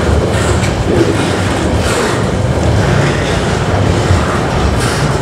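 Freight train wagons rolling past at close range: a steady rumble of wheels on the rails, with a few sharper clacks from the wheels now and then.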